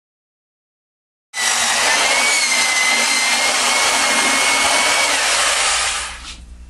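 Electric glaze mixer running in a bucket of pottery glaze: a steady motor whine over a loud rushing churn. It starts suddenly after about a second of silence and dies away near the end.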